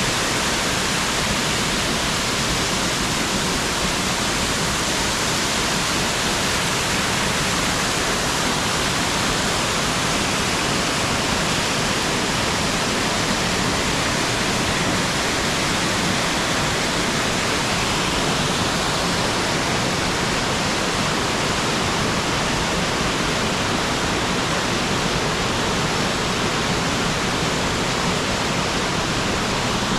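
Mountain stream cascading down a rocky gorge over many steps: a steady, loud rushing of falling water.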